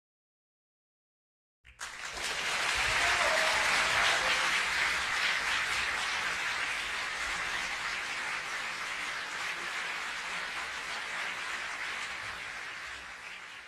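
Crowd applauding: clapping starts suddenly after a second or two of silence and slowly fades out.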